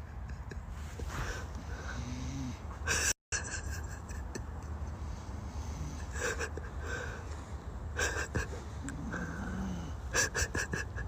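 A man snoring in his sleep, with wheezy breaths; two of the snores carry a low hum that bends up and down, about two seconds in and again near the end. Sharp clicks come now and then, and the sound cuts out for a moment a few seconds in.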